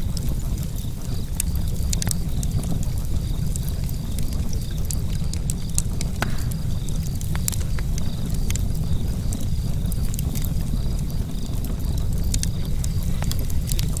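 Fire crackling: irregular sharp pops and snaps over a steady low rumble.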